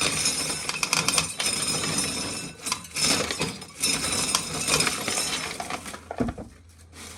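Hand-cranked corn sheller stripping kernels off a cob, the shelled kernels rattling down into a pail in a dense, uneven patter of small clinks; the rattling dies away about six seconds in.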